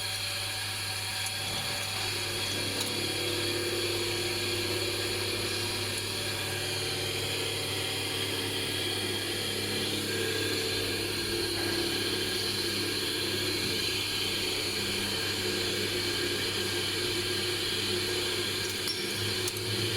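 Steady hum of running machinery, several constant tones over a low drone, like an electric motor or drive running continuously.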